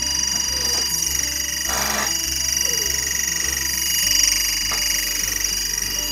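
Timecode audio (SMPTE linear timecode) played from a smartphone timecode app as its counter runs: a steady, loud, high electronic signal made of several held tones.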